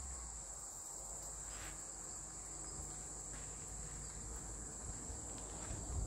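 Insects keeping up a steady, high-pitched chirring chorus, typical of crickets in summer.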